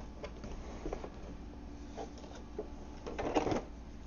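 Handling noise from an airsoft rifle being lifted out of its moulded foam box insert: scattered light clicks and knocks, with a louder scuffing rustle about three seconds in.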